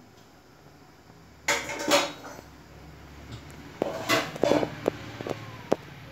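Steel kitchenware clattering and knocking in two bursts, one about a second and a half in and another from about four to almost six seconds in, each strike ringing briefly.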